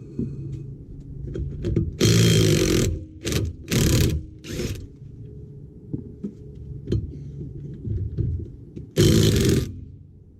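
Power tool run in short bursts: one of about a second, three shorter ones just after, and another near the end, with small clicks and knocks of tools in between.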